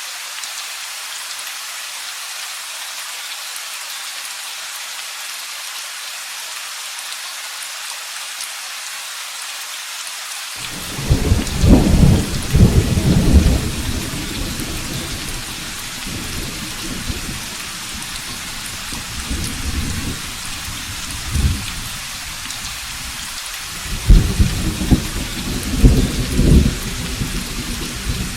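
Steady rain falling, with thunder: a deep rumble breaks in suddenly about ten seconds in, peaks and dies away over a few seconds, and a second rolling rumble comes near the end.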